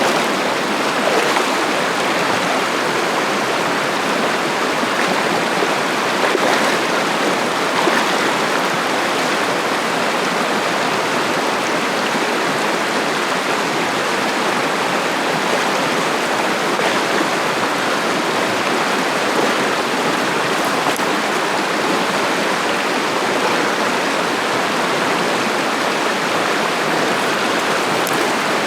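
Mountain river running over rocks: a steady rushing of water.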